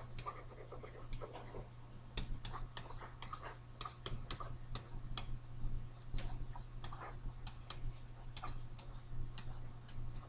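Stylus tapping and scratching on a tablet as words and numbers are handwritten: quiet, irregular clicks several times a second, over a steady low hum.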